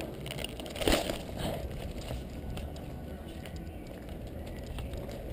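Handling and movement noise on an action camera: rustling and a sharp knock about a second in as an airsoft rifle is pushed through bushes, then scattered light clicks of footsteps over a low rumble.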